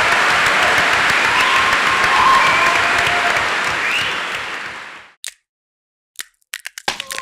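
Large auditorium audience applauding, fading out about five seconds in. After a moment of silence come a few short sharp clicks, and music starts just at the end.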